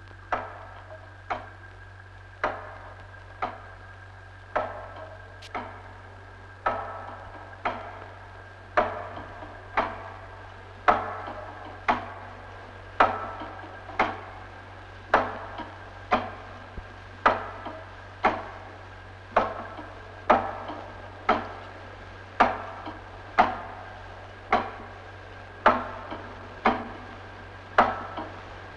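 Regular knocks, about one a second, each ringing briefly, growing louder over the first ten seconds and then staying even, over a low steady hum.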